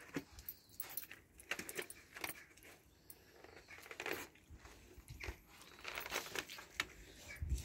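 A puppy pawing and nosing at the water of a foldable fabric paddling pool: irregular small splashes and scratchy rustles of paws on the pool's side.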